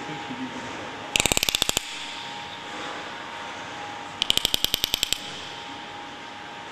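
Bottlenose dolphin making two short, rapid trains of clicks, each lasting under a second, the second about three seconds after the first.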